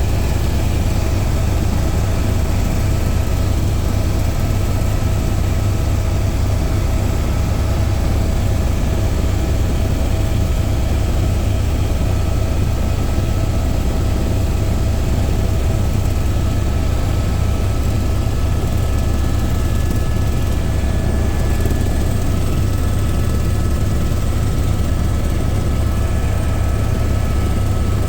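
Helicopter engine and rotor running steadily: a loud, even low rumble with a few steady whining tones above it.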